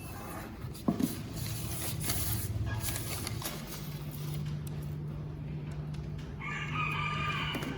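An animal call: one drawn-out pitched call lasting about a second and a half near the end, over a steady low hum, with a sharp knock about a second in.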